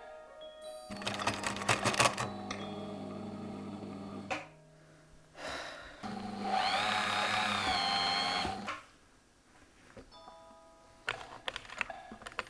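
Bernina electric sewing machine running in two bursts of stitching, the motor hum with rapid needle clicks; the second burst is louder and its pitch wavers as the speed changes. Short chiming music notes near the end.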